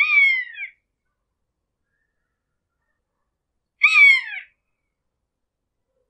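Hawk screeching: two short calls about four seconds apart, each a high, harsh cry that slides down in pitch.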